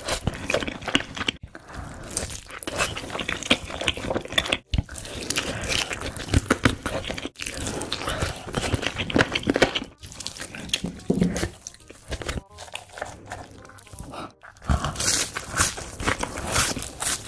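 Close-miked eating: a person biting into and chewing chicken and fries, with crunching and wet, crackly chewing. It breaks off briefly a few times.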